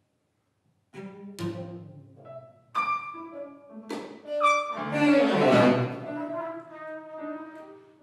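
Live contemporary jazz ensemble of bowed strings, horns, piano and drums playing sparse, sharp-attacked notes and chords with held tones between them, starting after about a second of silence. A louder, denser swell of sound comes just past five seconds in.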